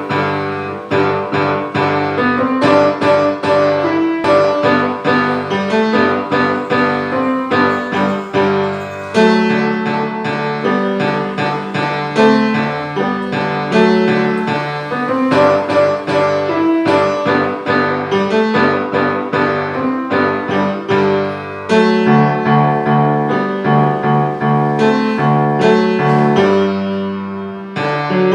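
Acoustic grand piano played solo: a steady stream of notes and chords over a moving bass line, with a louder new phrase and heavier low notes starting about nine seconds in and again about twenty-two seconds in.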